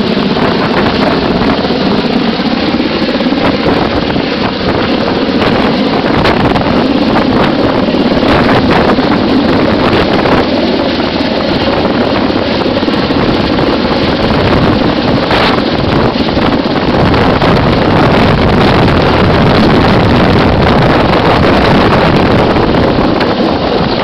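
Loud, steady roar of a helicopter hovering overhead, its rotor downwash buffeting the microphone with heavy wind noise, while a person rides a jungle penetrator on the hoist cable.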